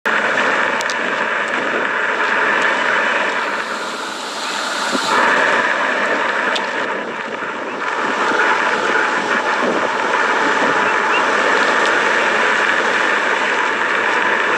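A steady rushing roar from underground in Hawaii's volcanic area, sounding like a lot of steam or other gases being pushed to the surface. It dips briefly twice.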